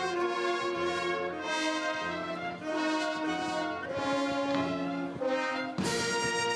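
Italian town wind band playing a march, brass to the fore, in held chords that change about once a second. A louder, brighter full-band chord comes in suddenly near the end.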